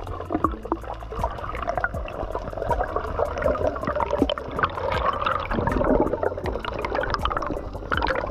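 Underwater sound picked up by a submerged camera: water swishing and gurgling around the housing, with a scatter of small sharp clicks and a low steady rumble.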